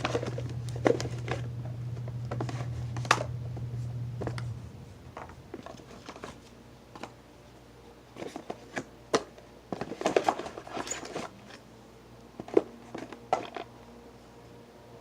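Small objects being handled and set down: scattered light clicks and taps with a little rustling. A low steady hum stops about four and a half seconds in.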